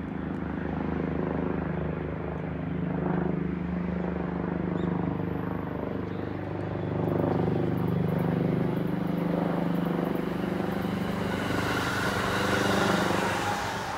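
Commuter electric train approaching and passing close by: a steady droning from its motors, with a broad wheel-on-rail hiss building near the end as the cars go past.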